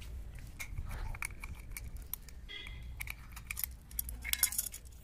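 Irregular light metallic clinks and ticks, with several short ringing notes, from small metal tools and hardware being handled.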